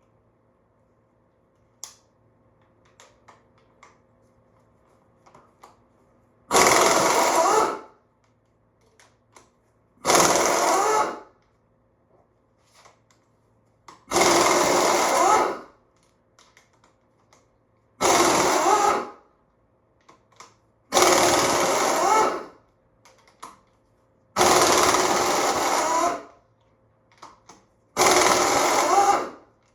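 Impact wrench hammering in seven separate bursts of one to two seconds each, a few seconds apart, as it loosens the head bolts on a V8 engine's cylinder head. Faint clicks and clinks come between the bursts.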